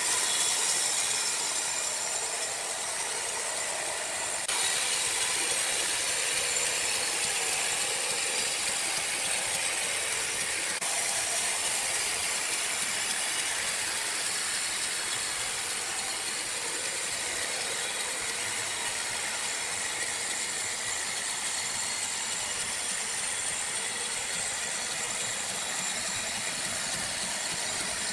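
Sawmill machinery running with a steady hiss. The sound jumps louder suddenly about four and a half seconds in and changes again about eleven seconds in.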